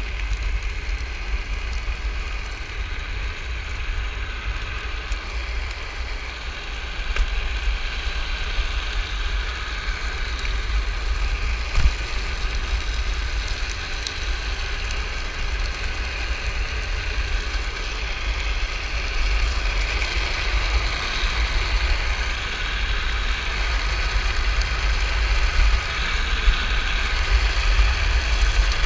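Wind buffeting the camera microphone over the hiss and crackle of drift trike wheels rolling and sliding on asphalt, with a faint steady whine from the Magic Pie 3 electric hub motor.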